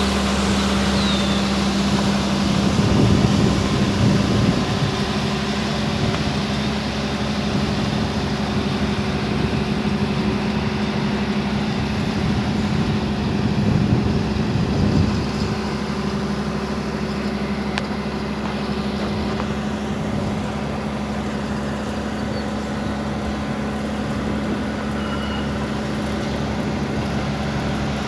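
A large vehicle engine running steadily at a constant pitch, with two swells of louder noise about three seconds in and again around thirteen to fifteen seconds in.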